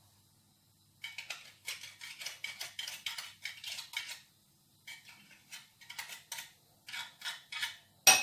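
Fresh ginger root being grated on a fine metal hand grater: rasping scrapes, at first about five strokes a second, then after a short pause slower strokes about two a second. A sharp metallic clink near the end.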